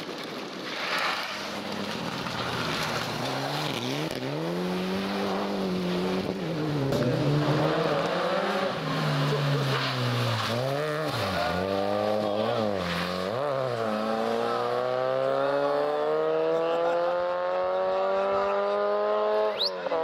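Rally car engine at full race pace: the pitch swings up and down through a corner with quick throttle blips on downshifts, then one long steady rise in pitch as the car, a Citroën Saxo, pulls hard away in a single gear.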